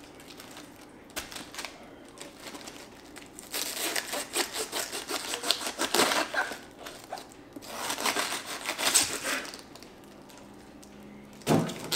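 A knife cutting into a raw head of cabbage, the crisp leaves crunching and crackling in two bouts of about two to three seconds each. A short thump comes near the end.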